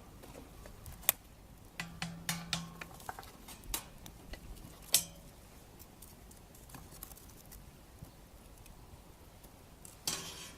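Scattered sharp clicks and knocks, the two loudest about a second in and about five seconds in, with a short rustling burst near the end.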